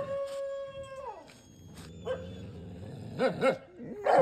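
Rottweiler giving a long whining howl, held on one note for about a second and then falling away, followed by a few short whimpers.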